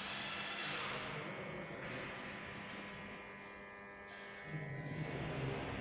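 A steady electrical hum over a wash of noise, dipping slightly in the middle and growing louder again about four and a half seconds in.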